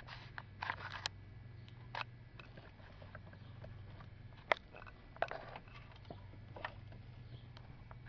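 Scattered small clicks, taps and brief rustles from hands handling multimeter probes and the ECM wiring harness, the sharpest click about four and a half seconds in, over a low steady hum.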